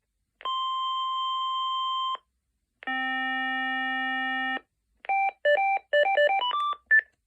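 Telular Phonecell SX5D fixed cellular phone playing its preloaded electronic ringtones: two long held tones, a higher one and then a lower one, followed by a quick melody of short beeps that climbs in pitch at the end.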